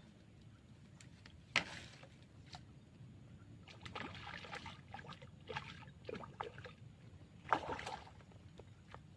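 Water splashing and sloshing in short bursts, four or five times, the loudest about a second and a half in and again near the end, over a steady low hum.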